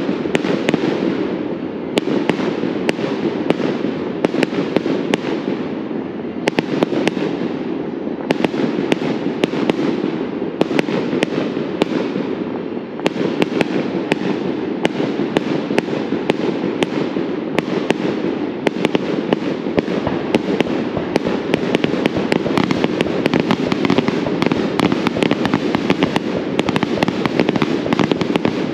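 Aerial fireworks bursting in a rapid string of bangs over a steady rumble, the bangs coming thicker and faster through the second half.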